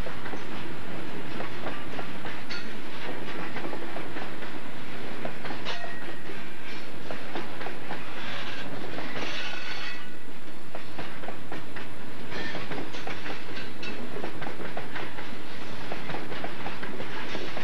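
Freight train of open-top hopper cars rolling past, the wheels clicking and clanking over the rail joints. A brief high squeal comes about halfway through.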